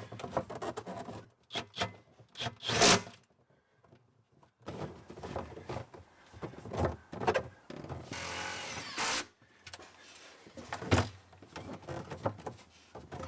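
Hands-on fitting work: scattered knocks, clicks and rubbing of parts and tools. There is a loud knock about three seconds in, about a second of hissy rustling around eight seconds, and another sharp knock near eleven seconds.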